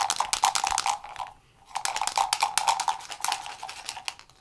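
Letter dice being shaken for a roll: a fast rattle of clicks in two long bouts, broken by a short pause about a second and a half in.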